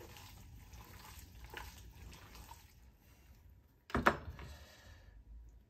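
Wet squishing and squelching of hands kneading a plant-based ground-meat and lentil meatloaf mixture in a glass bowl, then a short, sharp knock about four seconds in.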